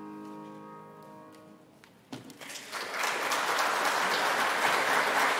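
The final held chord of a choral piece fades out, and about two seconds in the congregation breaks into sustained applause.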